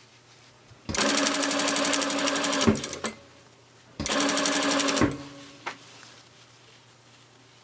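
Electric sewing machine stitching in two short runs, the first about a second and a half and the second about a second, each with a rapid, even needle rhythm. A short click follows soon after the second run.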